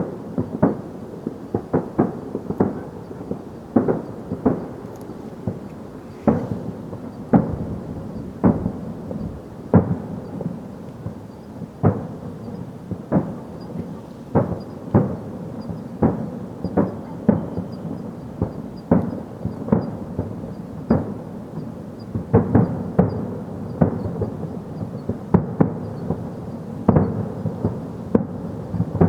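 Fireworks going off in a long, irregular series of bangs, roughly one or two a second, over a continuous low rumble.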